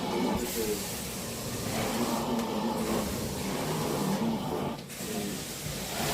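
A cleaning machine running steadily, its hissing spray or suction noise rising and falling several times in strokes of a second or two.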